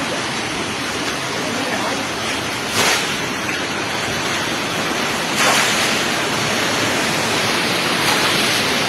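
Fast-flowing muddy floodwater rushing steadily, as a loud even wash of noise, with two brief louder swells about three and five and a half seconds in.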